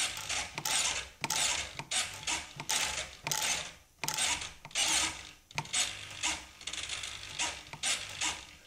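Small RC servos in a flying wing's control surfaces whirring in short, jerky bursts about twice a second as the transmitter stick is moved. The surface steps along in staggers rather than moving smoothly, the sign of control-link latency through the ULRS system.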